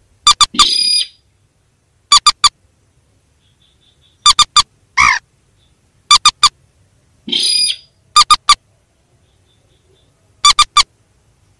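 Looped lure recording of mandar and sintar rail calls. Loud, short, sharp notes come in twos and threes about every two seconds, with a longer rasping call about half a second in and again about seven seconds in, and one drawn note about five seconds in.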